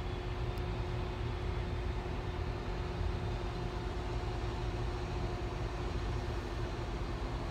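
Steady outdoor background rumble with a constant mechanical hum running under it, unchanging throughout.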